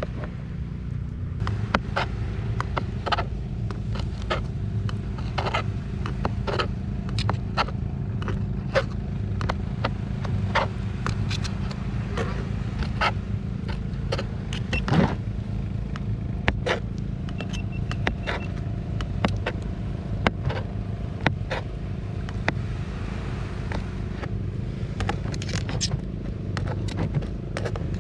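A knife slicing boiled octopus on a cutting board, making irregular sharp knocks about one or two a second. A steady low motor hum runs underneath.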